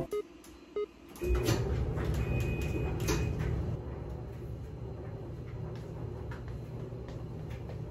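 Top-loading washing machine starting a cycle: a click from the control panel, then about a second in the machine starts running with a low rumble, a few knocks and a couple of short beeps, settling into a steady low hum.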